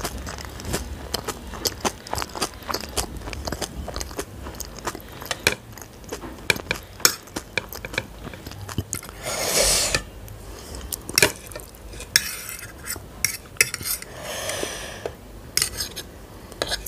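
Metal fork clinking and scraping against a ceramic plate while mixing and twirling masala Maggi noodles, with chewing near the start. Two longer noisy scraping stretches come about halfway and near the end.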